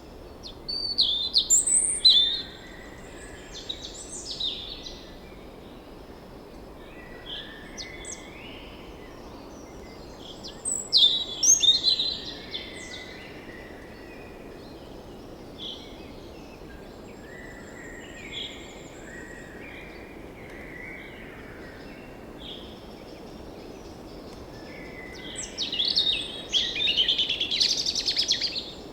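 Several birds calling and chirping in short phrases and trills over a steady low hiss, with louder bursts of calls about a second in, near the middle, and near the end.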